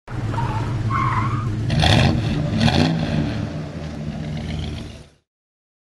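Sound effect of a car engine running and revving, with tyre squeal; it fades out about five seconds in.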